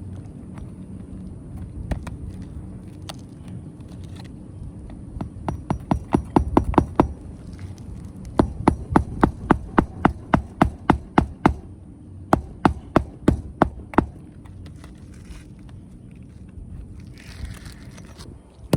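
Hammer striking a roofing nail into asphalt shingles: a quick flurry of blows, then a long run of steady strikes about three a second that stop a little before the end.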